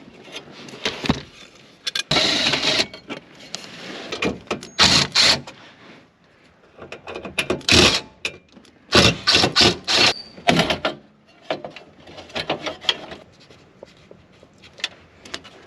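Irregular knocks, clicks and scraping from hand work pulling parts and trim out of a car's dashboard.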